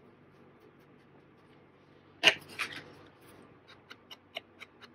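A sharp knock about two seconds in, a smaller one just after, then a run of light quick taps, about three or four a second, near the end: a small ink pad and an ink blending tool being handled on a cutting mat.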